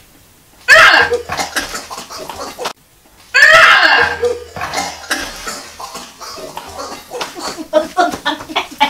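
A woman gagging and retching twice, loud and sudden, with the cup at her mouth, reacting to a foul-flavoured jelly bean; then short bursts of laughter.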